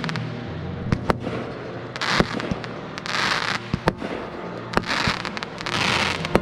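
Fireworks going off: sharp single bangs of shells bursting, about six in all, and between them several hissing crackle bursts of about half a second each.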